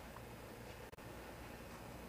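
Faint room tone: a steady low hum under an even hiss, with the sound dropping out for an instant about a second in.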